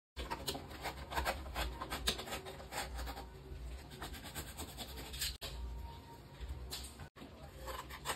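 Corrugated cardboard being cut with a utility knife and handled: a run of rasping, scraping blade strokes through the board, mixed with rubbing of the sheets. The sound breaks off briefly twice.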